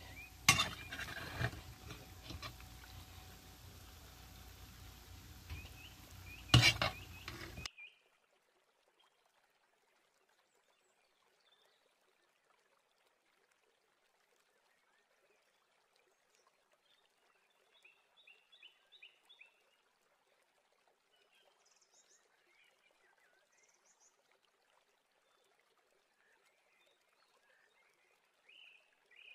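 A serving spoon knocking against a steel cooking pot: two sharp metallic knocks, about half a second in and again near six and a half seconds, over a steady hiss. After about eight seconds the sound drops to near silence, with a few faint chirps.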